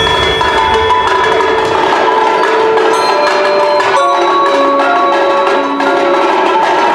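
Indoor percussion ensemble playing: quick mallet strokes on marimbas and vibraphones over steady held tones, loud and continuous.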